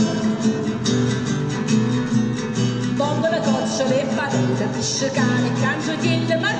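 Live music: a voice singing a melody over plucked guitar accompaniment.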